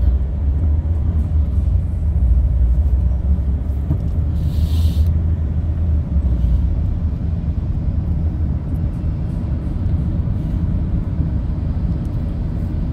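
Road noise heard inside a moving car: a steady low rumble of engine and tyres, with a brief hiss about four and a half seconds in.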